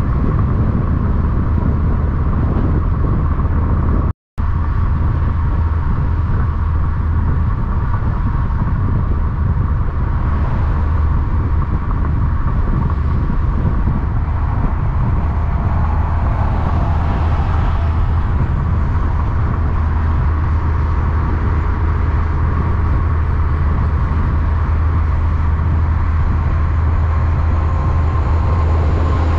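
Steady low drone of a heavy diesel truck engine running at an even speed, with no revving or engine-brake pulses. The sound cuts out abruptly for a split second about four seconds in.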